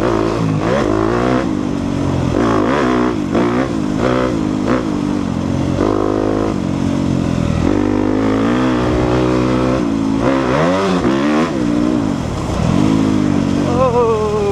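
2014 Suzuki RM-Z250's four-stroke single-cylinder engine revving up and dropping back again and again as the rider opens and closes the throttle and shifts gears riding a dirt trail.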